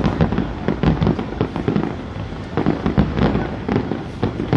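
Fireworks going off in a dense, irregular barrage of bangs and crackles, several a second.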